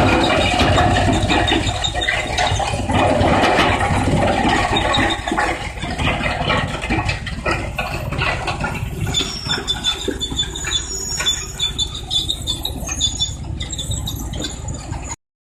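Industrial wood crusher running, a dense mechanical rumble with irregular knocks and, in the second half, thin high squeals. It cuts off suddenly near the end.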